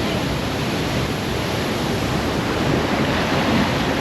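Waterfall pouring into its pool: a steady rushing of falling water.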